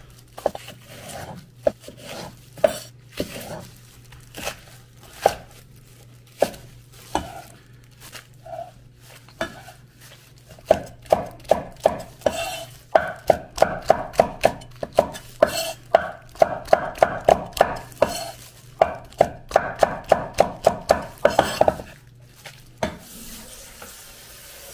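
Kitchen knife chopping green onions and green chili peppers on a wooden cutting board. The cuts come one at a time at first, then speed up about halfway through into a quick, even run of chops. The chopping stops near the end, when a kitchen tap starts running.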